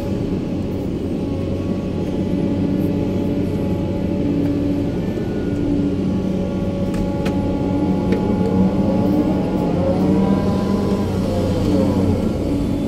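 Sumitomo 350 hydraulic excavator's diesel engine running steadily under working load, heard from inside the operator's cab, with its pitch shifting up and down in the second half as the boom and bucket move. A few faint clicks come about halfway through.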